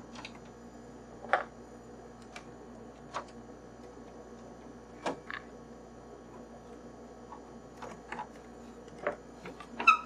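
Scattered light clicks and knocks from an iMac G3's plastic case as it is handled and lifted by its handle, over a faint steady hum. The sharpest knock comes about a second in.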